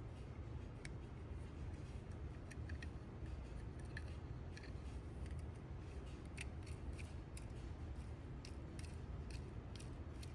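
Faint, irregular small clicks and taps of hand tools on a die-cast toy car's axle and wheels while the axle is fitted, coming more often in the second half, over a low steady hum.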